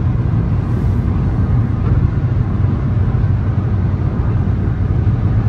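Steady road and engine noise inside a moving car's cabin, a continuous low rumble with no breaks.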